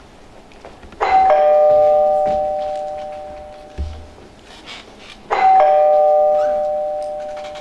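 Two-tone doorbell chime ringing twice, a high note then a lower one, each ding-dong ringing out and fading over about two seconds. There is a dull thump between the two rings.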